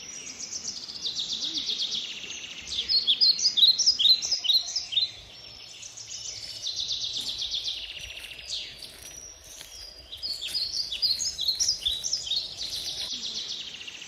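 Several songbirds singing at once in a forest: fast buzzy trills alternating with quick clusters of short, sharp chirps, over a faint steady background hush.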